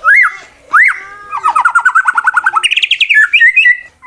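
White-rumped shama (murai batu) singing a challenge song. Two loud upslurred whistles open it, then a fast rattling trill of low notes for about a second, then a higher trill and a run of varied notes.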